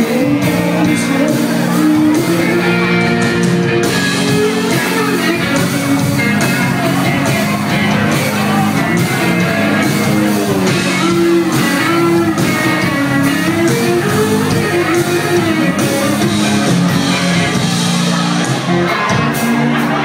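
Live band performing a Thai pop-rock song through a PA: electric guitar and vocal melody over bass and drums, with the audience shouting along.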